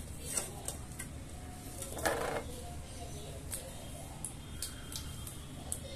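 Scattered light clicks and taps of small painting things being handled, a paintbrush and plastic fabric-paint bottles, with a brief scratchy rustle about two seconds in, over a steady low hum.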